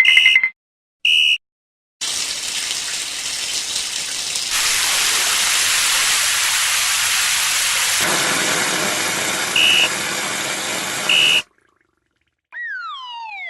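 Cartoon sound effects: two short high beeps, then a long even rushing hiss that PANN hears as rain, broken by two more short beeps. After a short gap come several falling, whistle-like glides.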